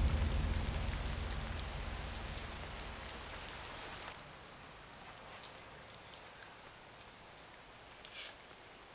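Steady rain falling, heard from under shelter. Background music fades away over the first few seconds.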